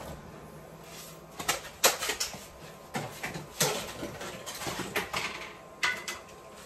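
Scattered short knocks and clinks of a frying pan and cooking utensils as tomatoes are added to the pan and stirred.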